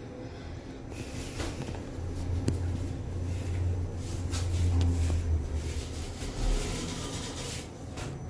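Low hum of a thyssenkrupp passenger lift car travelling up one floor. The hum swells through the middle of the ride and eases as the car slows, with a short low thump near the end.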